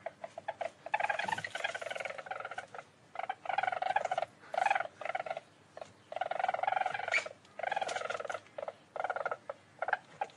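Least weasel giving rapid, pulsed trilling calls in repeated bursts of up to about a second each, with a few short chirps in the first second.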